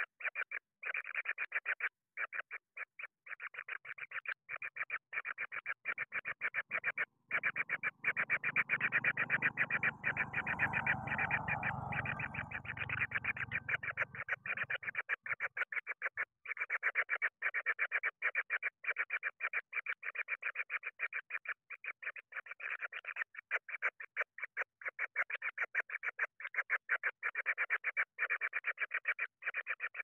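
A fast, continuous pulsed trill from an animal call, many pulses a second, broken by short pauses. A low rumble comes in about seven seconds in and fades out around fifteen seconds.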